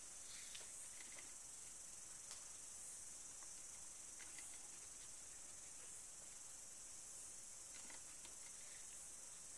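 Faint, steady high hiss of recording noise, with a few soft scratchy strokes of a white crayon stick shading on black paper.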